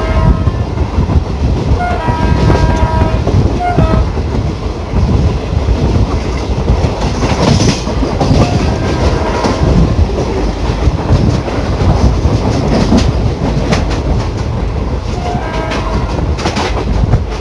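Diesel-hauled passenger train running at speed, heard from an open coach door: a steady rumble with wind and the clatter of wheels over the rails. The locomotive's horn sounds in short blasts about two seconds in, once more briefly near four seconds, and again in a longer blast near the end.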